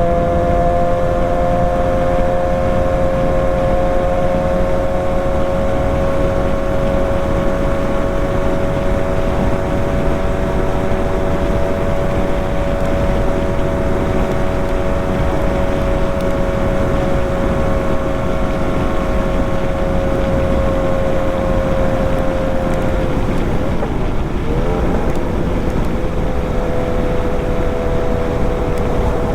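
BMW S1000 XR inline-four motorcycle with a full Akrapovic exhaust running at a steady cruise, its engine note holding nearly level over a heavy rush of wind noise. About three-quarters of the way through the note wavers briefly, then settles again slightly lower.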